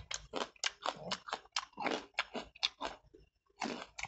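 Raw whole small red onions being bitten and chewed fast, a quick run of crisp wet crunches with a brief pause a little after three seconds in.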